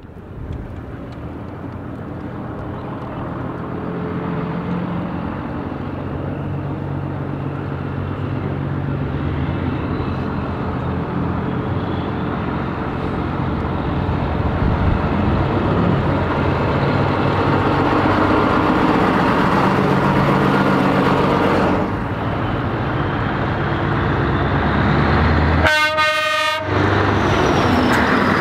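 Classic DAF and Scania trucks driving past one after another, their diesel engines running through loud exhausts and growing louder as they come closer. A truck air horn sounds once, for about a second, near the end.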